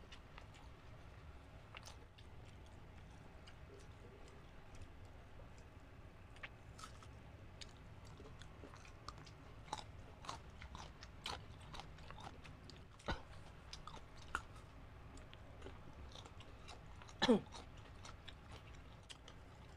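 Close-miked chewing and biting of food, including crisp green mango, with wet mouth clicks and small crunches scattered throughout, busier in the second half. One louder brief sound stands out near the end.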